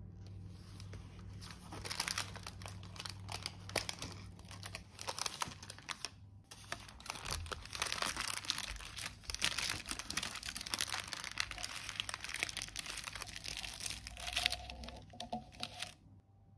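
Printed kraft baking-paper wrapper being peeled open and crinkled from around a soft melted cheesecake: a dense run of paper crackles and rustles, with a short pause about six seconds in. It stops shortly before the end.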